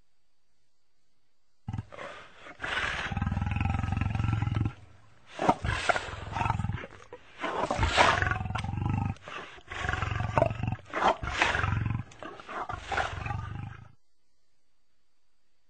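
Lion roaring: a series of deep, drawn-out roars starting about a second and a half in and stopping about two seconds before the end.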